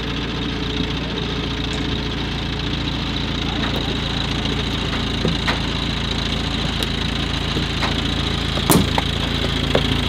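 Diesel engines of a crane and backhoe running steadily while the crane hoists a soil-filled car by a chain. Scattered cracks and creaks come from the strained, crushed car body, with one sharper knock near the end.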